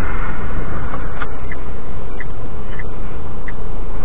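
Steady engine and road rumble inside a vehicle cab while driving at speed, with a faint short tick about every two-thirds of a second.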